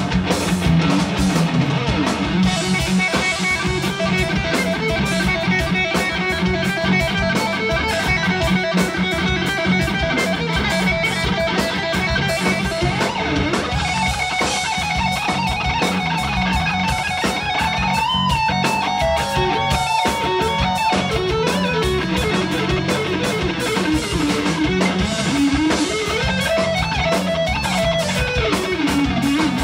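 A live rock band playing an instrumental: a lead line on a Telecaster-style electric guitar over bass guitar and a drum kit keeping a steady beat. The guitar bends notes about 18 seconds in and plays sliding runs that rise and fall near the end.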